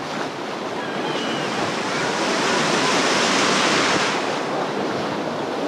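Ocean surf washing in around the legs of people standing in the shallows: a steady rush of breaking whitewater that swells louder about two seconds in and eases off after about four.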